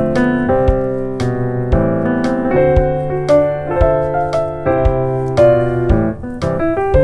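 Background music: a keyboard or piano playing a gentle melody with chords, notes struck at an even pace.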